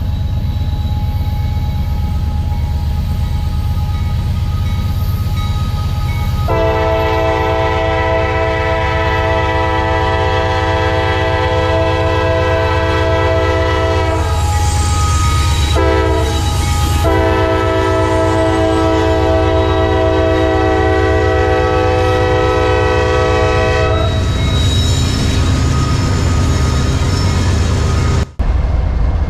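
Diesel locomotive passing with its engine rumbling and its air horn sounding a chord of several notes, held long twice with a short break between. The sound drops out briefly near the end.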